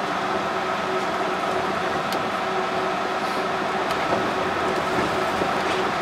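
Yurikamome rubber-tyred automated train running steadily, heard from inside the car: an even rolling noise with a steady motor hum, and a couple of faint ticks about two and four seconds in.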